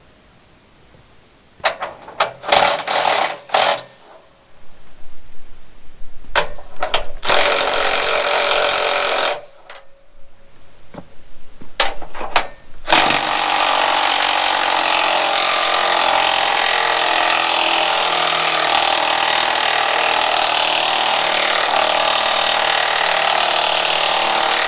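A power tool run in short bursts, then held running steadily for about twelve seconds near the end.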